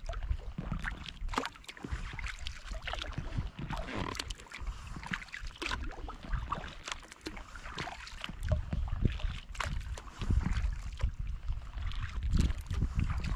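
Kayak paddle strokes dipping into calm water, with splashes and drips from the blades. Low rumbling comes in during the second half.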